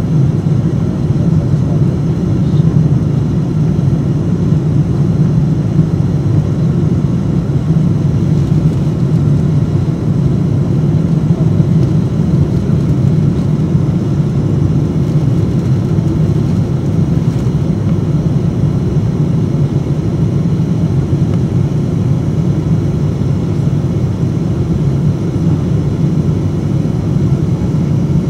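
Steady low rumble heard inside the cabin of an Airbus A350-900 climbing out after takeoff, its Rolls-Royce Trent XWB engines at climb power.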